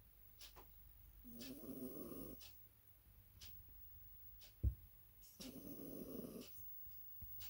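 A sleeping pet snoring, two slow rasping snores about four seconds apart. A short thump falls between them.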